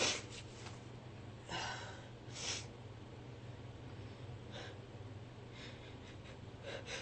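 A woman's short, faint breaths between sneezes, a few quick intakes through the nose and mouth spaced a second or two apart.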